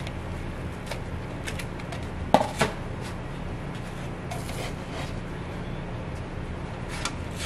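A black spatula scraping and clacking on an electric pancake griddle and a plate as cooked pancakes are lifted off, with two sharp knocks a little over two seconds in and lighter clicks and scrapes later, over a steady low hum.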